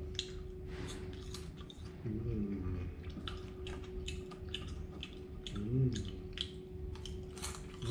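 Crunchy chewing of fried mealworms: a quick, irregular run of crisp crackles as they break in the mouth, with two short hums from the eater, about two seconds in and again near six seconds.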